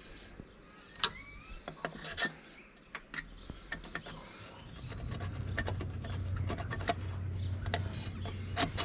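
Scattered light clicks, taps and rubbing of hands handling a metal awning bracket on a van's roof rail, with a low rumble coming in about halfway through.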